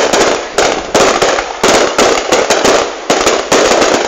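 Fireworks going off: a loud, rapid, overlapping run of bangs and crackles, in bursts about every half second.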